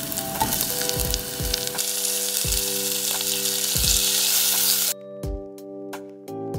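Butter and thin pork slices frying in a hot pot, a loud steady sizzle that cuts off suddenly about five seconds in. Background music with plucked notes runs underneath.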